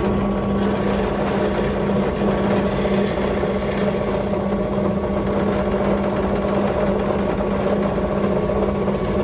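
Bench drill press motor running steadily with a constant hum while its bit is fed down to bore a ventilation hole in a wooden birdhouse base.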